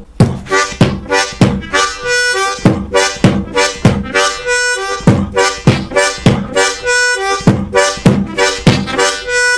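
Harmonica beatboxing on a ten-hole diatonic harmonica: a breathy kick-drum "B" sound on a chord of holes 1–2–3, repeated about three times every two seconds in a steady groove. Short two-note phrases on holes 3 and 2 are played between the kicks, without bends.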